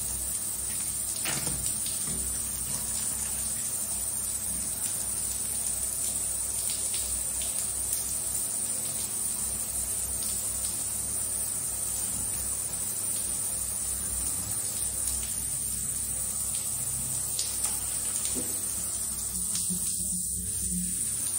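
Shower water running steadily, an even spray hissing onto the floor, with a few faint knocks from the puppy and hands.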